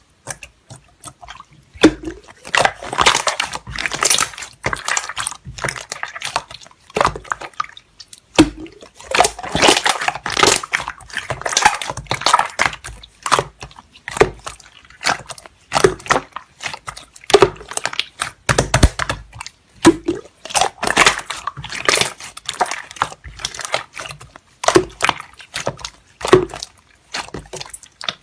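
Slime being squished and poked by hand: irregular runs of wet clicks, pops and crackles, with brief pauses between handfuls.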